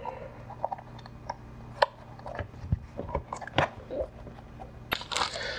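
Small clicks and taps of hands handling wires and a foam flying wing, over a faint steady low hum; about five seconds in, a louder rustling scrape as the foam wing is slid across the cutting mat.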